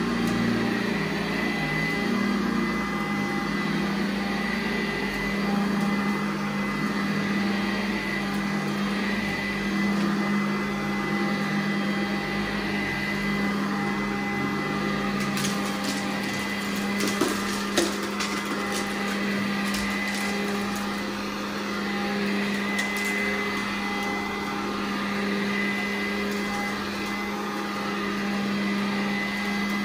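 Carpet-cleaning machine running with a steady, even whine. A cluster of sharp clicks and knocks comes about halfway through.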